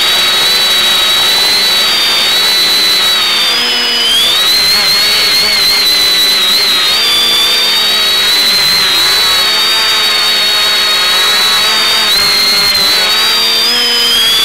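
X550 quadcopter's electric motors and propellers buzzing in flight. Several pitches drift up and down and cross each other as the motor speeds change, over a steady high whine.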